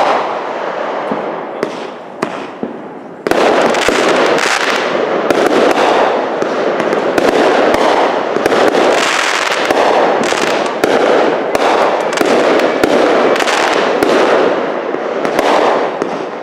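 Aerial fireworks shells bursting in a continuous barrage of bangs and crackling. The barrage suddenly becomes much louder and denser about three seconds in.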